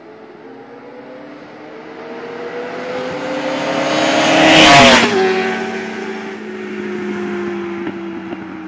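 A stock 2004 Suzuki GSX-R600 and a 2003 Suzuki Bandit 1200 with a stage 3 jet kit accelerating flat out from a standing start, their inline-four engines rising in pitch as they come closer. They pass close about five seconds in, the pitch drops sharply, and the engine sound fades as they ride away.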